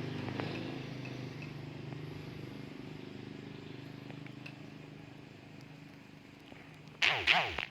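A passing motor vehicle's engine hums steadily and slowly fades away over several seconds. A short burst of a man's voice comes near the end.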